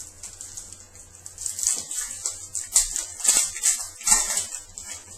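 Trading cards slid and flipped against one another in the hands: a run of quick, crisp swishes and flicks from about one and a half seconds in to near the end.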